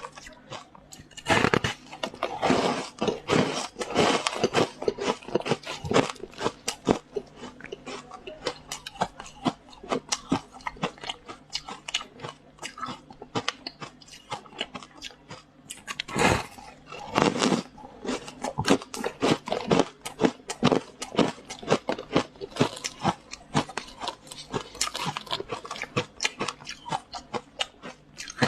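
Close, crunchy biting and chewing of frost ice: a dense run of crackling crunches, with louder bites about a second and a half in and again about sixteen seconds in.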